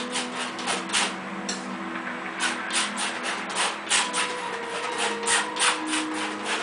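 Metal palette knife dabbing and scraping paint onto a stretched canvas: short scraping strokes in quick, uneven succession, about two or three a second.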